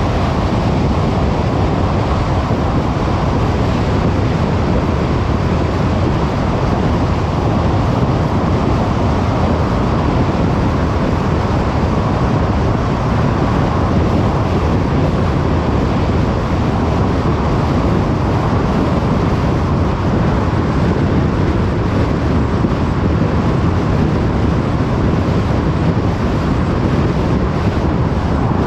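Car driving at a steady speed: constant road noise of tyres, engine and wind, strongest in the low range, with no changes.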